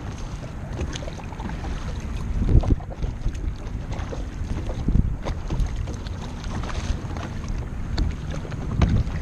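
Kayak paddle strokes dipping and splashing in choppy water, with wind buffeting the microphone. There are irregular louder splashes a few seconds apart.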